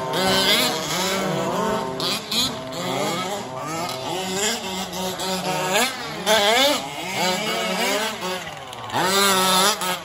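Several radio-controlled 4WD race cars driving on a dirt track. Their motors whine in overlapping tones that rise and fall quickly with the throttle.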